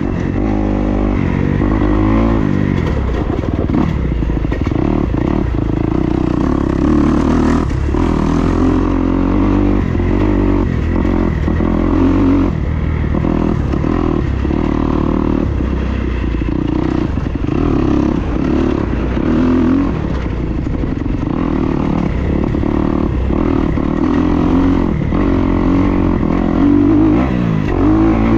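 Dirt bike engine running on a trail ride, its pitch rising and falling again and again as the throttle is opened and closed.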